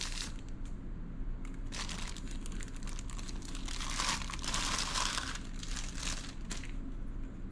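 Clear plastic packaging bag crinkling as it is pulled off the metal parts of a candle warmer lamp, with a short burst at the start and then steady crinkling for about five seconds.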